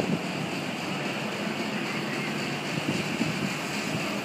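Steady roar of ocean surf with a low, even drone underneath; a light bump or two about three seconds in.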